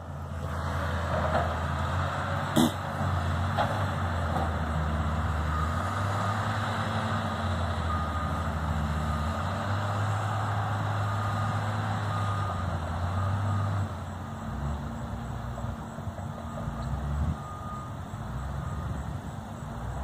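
Heavy diesel construction machinery running at a worksite, a steady low engine drone that eases off about two-thirds of the way through. Faint reversing beeps repeat about once a second, and there is a single sharp knock near the start.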